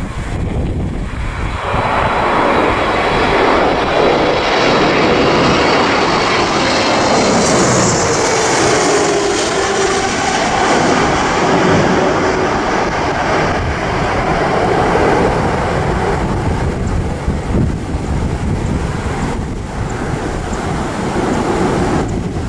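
Boeing 777-300ER jet with GE90-115B engines passing by: a loud jet roar that swells from about two seconds in, peaks with a falling tone around the middle, and eases off slowly. Wind buffets the microphone throughout.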